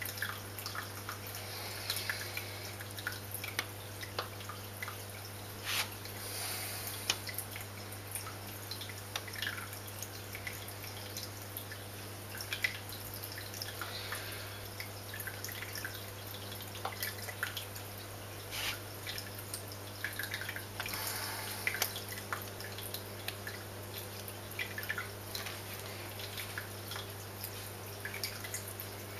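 Aquarium water dripping and trickling in small irregular splashes, over a steady low hum.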